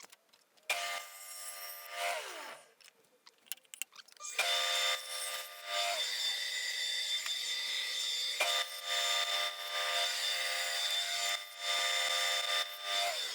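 Electric saw cutting wood: the motor starts, runs briefly and winds down, then starts again and runs steadily through a cut before winding down near the end.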